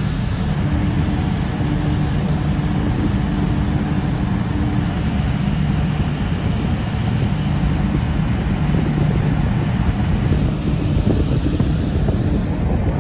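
Steady low rumble and hum of the ferry Excellent's on-board machinery, heard from the open deck, with wind buffeting the microphone.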